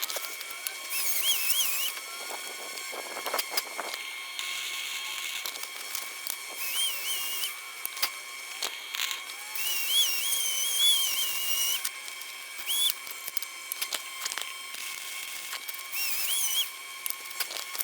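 Flux-core wire-feed welder arc on thin exhaust pipe, laid in short bursts of one to two seconds. Each burst is a hissing crackle with a wavering whistle, and there are sharp clicks between the bursts.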